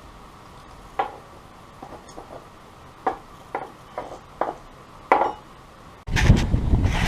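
About six sharp metallic clinks and knocks, each ringing briefly, as metal parts are handled. About six seconds in, a sudden loud rushing noise starts.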